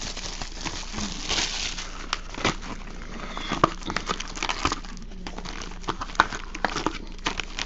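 Plastic shrink-wrap crinkling and tearing as a sealed card box is unwrapped, with many small clicks and knocks of cardboard and foil card packs being handled.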